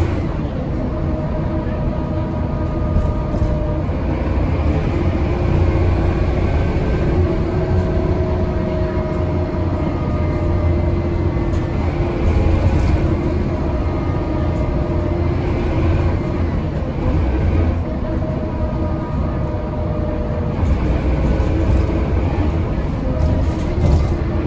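Dennis Trident double-decker bus's diesel engine and Voith automatic gearbox under way, heard from the upper deck: a steady low rumble with the engine note rising and falling as the throttle is pumped hard.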